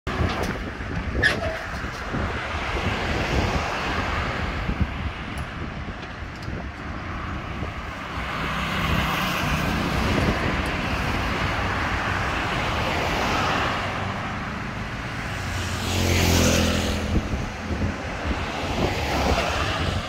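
Mini excavator's diesel engine running steadily while its hydraulic boom lowers the bucket to the ground, mixed with road traffic; a louder vehicle passes close by about sixteen seconds in.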